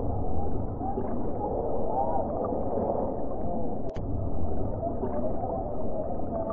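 Crowd of spectators chattering, many overlapping voices, over a low steady rumble, with a sharp click about four seconds in.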